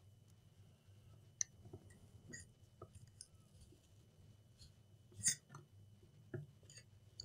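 Faint scattered clicks and scrapes of a thin pry tool working under the edge of a laptop LCD panel set in a metal lid, breaking the adhesive strips that hold the screen. The sharpest click comes about five seconds in.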